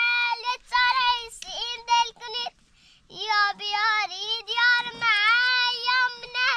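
A high-pitched voice singing a melody of held, wavering, ornamented notes, pausing briefly about two and a half seconds in before a longer undulating phrase.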